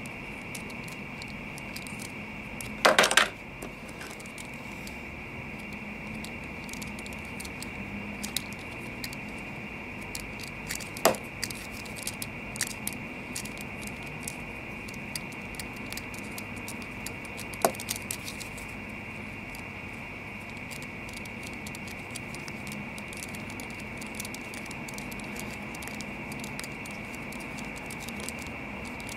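A metal lighter being spun and turned in the fingers: scattered light metallic clicks and taps, with a brief rattling clatter about three seconds in and two sharper single clicks, one around the middle and one about two-thirds through. A steady high hiss runs underneath.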